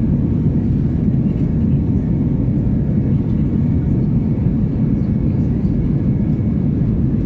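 Steady cabin noise of an Airbus A320 climbing after takeoff, heard from a window seat: a dense, even low rumble of engines and airflow with no breaks.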